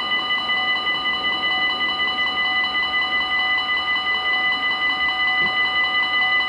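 Belgian level-crossing warning bells ringing: a steady, multi-tone electronic ring with a rapid, even pulse, signalling that the crossing is closing for an approaching train.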